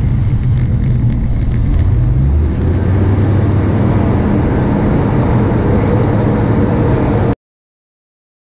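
Light aircraft's engine and propeller droning inside the cockpit, with rushing airflow, during a stall recovery. The engine note shifts about two seconds in and the air noise grows brighter as the nose drops and speed builds. The sound cuts off abruptly near the end.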